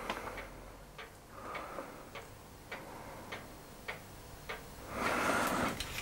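Faint, evenly spaced ticking, a little under two ticks a second, stopping after about four and a half seconds. A papery rustle rises near the end as an old paper booklet is handled.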